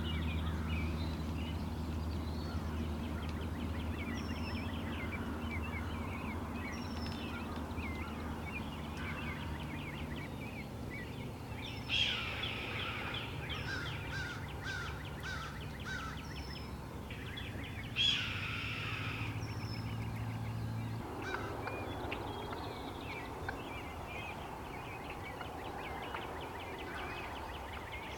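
Wild turkey tom gobbling twice, about twelve and eighteen seconds in, over many small songbird chirps. A low steady hum runs underneath and stops about two-thirds of the way through.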